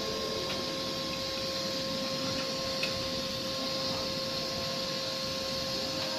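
Welding equipment running steadily: an even hiss and hum with a constant whine held at one pitch, and a faint tick about three seconds in.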